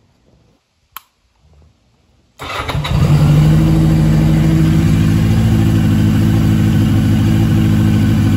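Yamaha XJ750 Seca's air-cooled inline-four starting: a sharp click about a second in, then the engine catches abruptly a little over two seconds in and runs steadily and evenly. It starts right up and sounds healthy, its carburetors freshly cleaned with Seafoam.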